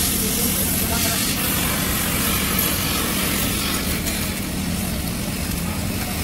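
Arc welding machine humming steadily between welds, with a low mains-frequency hum under a broad hiss and no arc struck.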